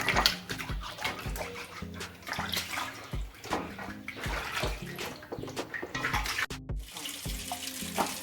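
Water running and splashing as fresh ginger root is rubbed clean by hand.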